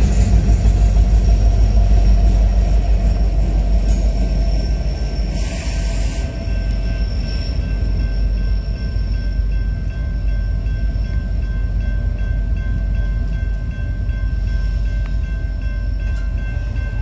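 A Union Pacific manifest freight train rolling past with a heavy, continuous rumble, loudest in the first few seconds as the locomotive goes by and then the cars. A grade-crossing warning bell rings steadily over it.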